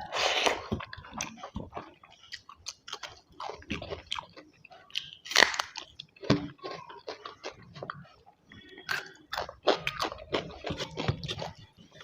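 Close-up eating sounds of a person chewing and biting food, with irregular wet mouth clicks and a few louder crunchy bites.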